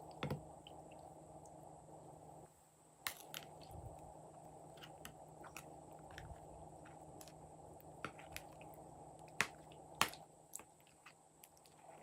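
Slime being squished and kneaded by hand: scattered sticky clicks and pops, the loudest about three seconds in and twice near the end, over a faint steady hum.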